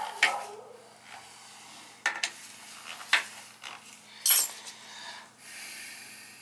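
Sharp metallic clinks and knocks of tools and oil-burner parts being handled during reassembly of the burner after a motor-to-pump coupling change, a few separate strikes with the loudest about four seconds in, over a faint steady hum.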